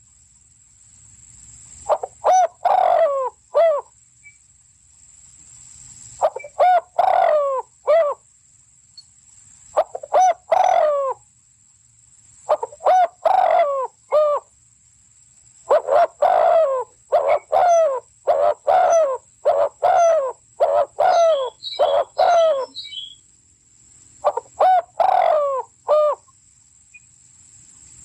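A fowl-like bird calling in repeated bursts of short, falling notes, several notes to a burst, with pauses of a second or two between bursts; one longer run of notes comes past the middle.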